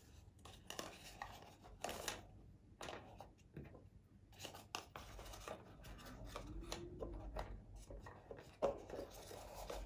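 Faint handling sounds on a tabletop: a drinking cup lifted and set back down while a small birthday candle is tucked under it, a scatter of light taps and rubs.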